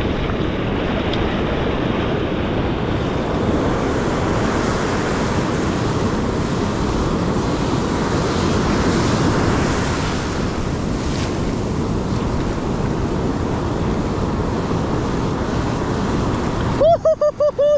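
Ocean surf washing and breaking, with wind buffeting the microphone. About a second before the end the surf noise drops away and a wavering pitched sound begins.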